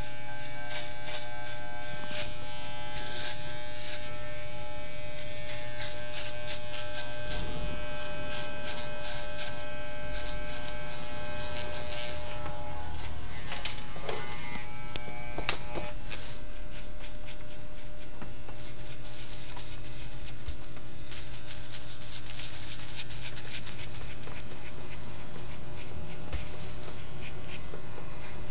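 Corded electric hair clippers running steadily with a low hum as they cut a man's short hair. A single sharp click comes about halfway through.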